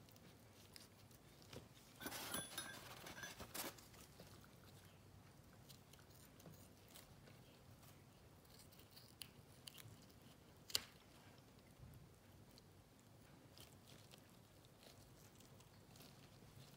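Mostly near silence. About two seconds in comes a short crunching stretch as a dissecting blade cuts through the tough wall of a cow's eye, then faint ticks of the instruments and one sharp click near eleven seconds.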